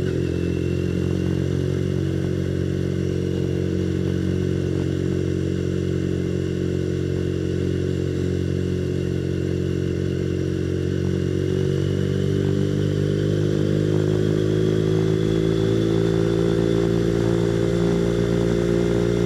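Motorcycle engine pulling steadily in one gear, its pitch slowly climbing through the second half as the bike speeds up. Heard through a microphone inside a full-face helmet, with wind rushing over the helmet.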